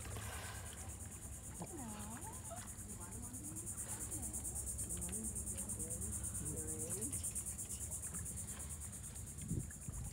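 Insects trilling: a steady, high-pitched buzz made of fast, even pulses.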